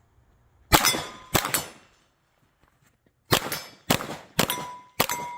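Glock 19 9mm pistol shots at steel targets: two shots, a pause of nearly two seconds, then four more in quick succession, with steel plates ringing after the hits.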